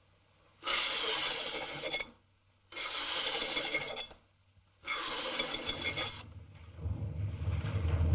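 Hacksaw blade rasping across metal jail bars in three long, even strokes about two seconds apart. Near the end a low rumble starts and grows louder.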